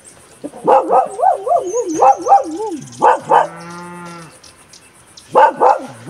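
Farm animals calling: a long wavering call that drifts down in pitch, then a steady, lower drawn-out call, and a quick run of short sharp calls near the end.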